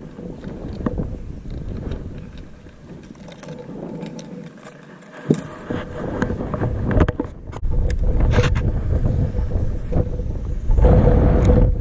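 Wind buffeting the microphone in gusts, with scattered sharp clicks and knocks of things being handled and a faint steady hum.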